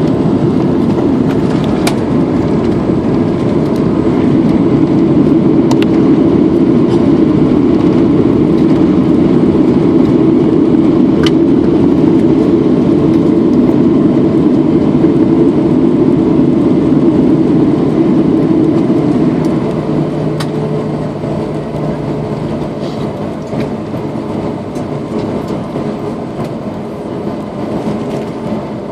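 Cabin noise of a Boeing 757-231 landing: a loud, steady roar of engines and rushing air, with a few faint clicks. About two-thirds of the way through the roar drops noticeably to a quieter rumble with a low steady hum as the aircraft slows.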